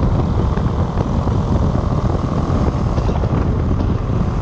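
Loud, steady rush of wind buffeting the microphone on a pilot in open-air flight.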